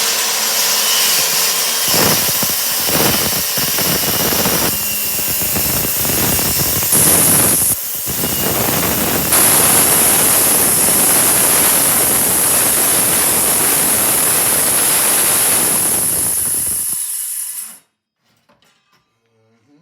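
Power saw cutting through kitchen cabinet wood: a loud, steady whine that varies with the load and stops suddenly near the end.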